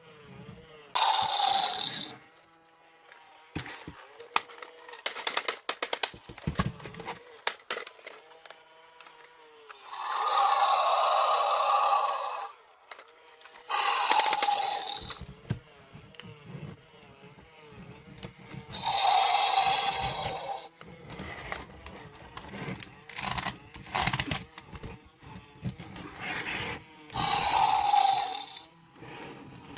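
Electronic sound effects from a BIOPOD toy creature's small speaker: about five separate bursts, each about a second long. Plastic clicking and rattling fills the gaps, with a faint warbling electronic tone underneath.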